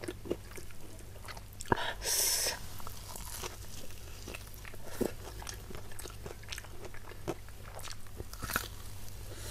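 Close-miked biting and chewing of a fried battered fritter (gorengan). There is one crunchy bite about two seconds in, followed by chewing with many small mouth clicks.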